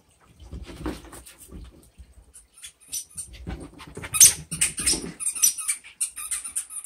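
A dog running wildly after a bath, her paws thudding and scuffling on carpet and against furniture. From about three seconds in, a squeaky dog toy squeaks rapidly and repeatedly, several short high squeaks a second.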